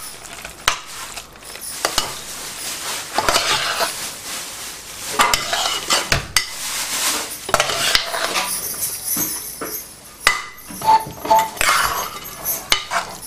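A metal spoon stirring thick, cooked-down carrot halwa in a pressure cooker pot, with irregular scrapes against the pot's metal base and sides. There is a brief metallic clink about eleven seconds in.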